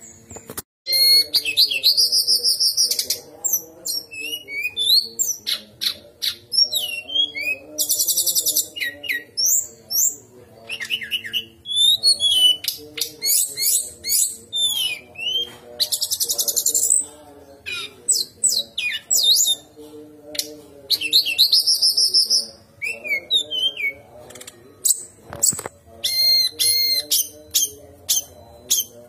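Brown-chested jungle flycatcher singing a long, varied song of sliding whistled notes, rapid high trills and chattering phrases, with brief pauses between phrases.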